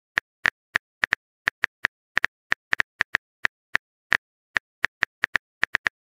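Phone on-screen keyboard key-click sounds, one short click per keypress, in a quick, uneven run of about five a second as a message is typed.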